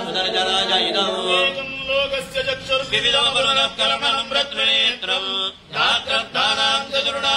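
Male priests chanting Sanskrit hymn verses in a steady recitation, amplified through a handheld microphone, with a brief pause about six seconds in.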